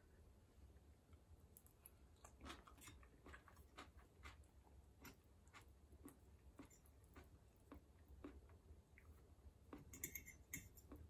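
Faint chewing of spaghetti, with small irregular clicks of a metal fork against the plate as the noodles are twirled, and a short run of brighter clinks about ten seconds in.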